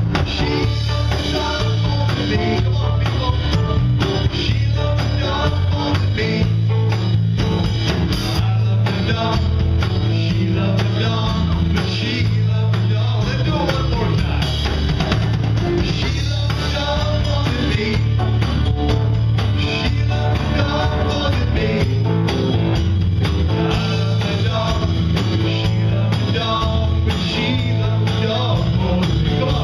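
Live band playing a song: a man singing lead over strummed acoustic guitar and electric bass, with a steady beat.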